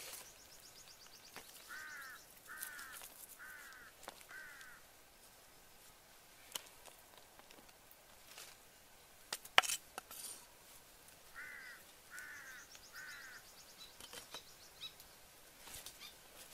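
A crow cawing: a series of four harsh caws about two seconds in, then three more about eleven seconds in. Scattered sharp clicks and one loud knock about ten seconds in, with a faint high trill near the start and end.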